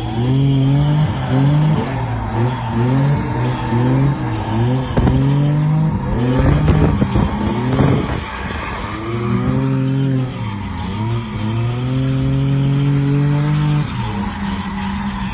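Drift car engine revving hard, its pitch climbing and dropping over and over as the throttle is worked, with tires skidding and squealing through the slides.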